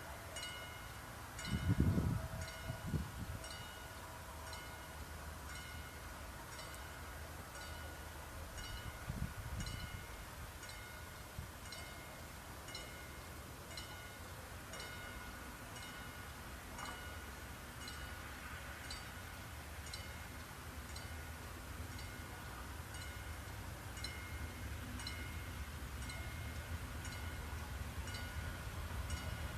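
Level-crossing warning bell ringing steadily, evenly spaced dings a little more than one a second, signalling an approaching train. A low thump comes about two seconds in and another about nine seconds in. Over the last several seconds the low hum of the approaching diesel locomotive's engine slowly grows.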